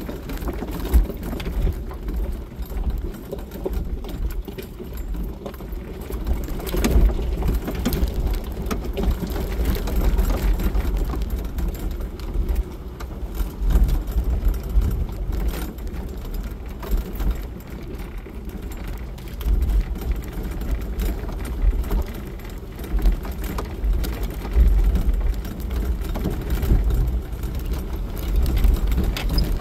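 Jeep Wrangler driving along a gravel road: a steady low rumble of engine and tyres that swells and dips, with a few scattered knocks and rattles.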